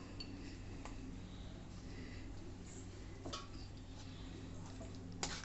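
A few light clinks of a metal spoon against a stainless steel pan, the sharpest one near the end, over a faint steady low hum.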